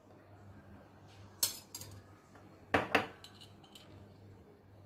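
Metal spoon clinking against a stainless steel bowl as flour is tipped in: a few sharp clinks, the two loudest about a second and a half and three seconds in.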